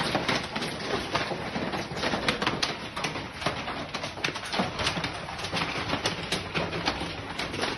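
Hail and rain falling hard, a steady hiss scattered with many sharp, irregular clicks of hailstones striking.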